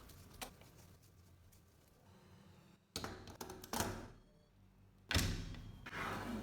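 An Olympia Splendid portable typewriter's mechanism being worked by hand: a light click, then three sharp mechanical knocks, each followed by a short sliding rasp.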